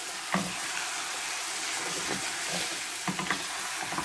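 Beef stew sizzling in a stainless steel pan as a wooden spoon stirs it, with a steady hiss. The spoon knocks against the pan about a third of a second in, once around the middle, and twice near the end.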